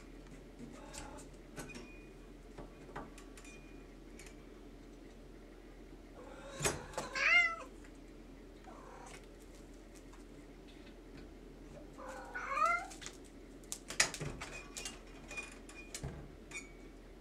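Domestic cat meowing twice, several seconds apart, each call wavering up and down in pitch. Light clicks and taps from the metal lever door handle as the cat paws at it, with one sharp click about fourteen seconds in.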